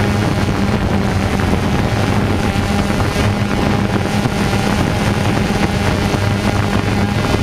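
Small multirotor drone's motors and propellers running steadily, heard from the camera carried on it: a constant hum with wind rushing over the microphone.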